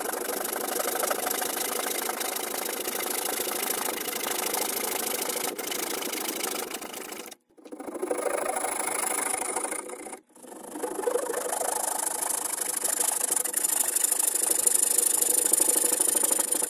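Hand saw cutting through a softwood block clamped in a vise: continuous fast rasping strokes of the saw teeth through the wood, with two brief breaks, about seven and ten seconds in.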